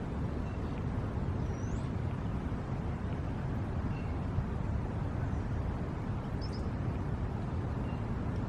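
Outdoor ambience: a steady low rumble with a few faint, scattered bird chirps high above it.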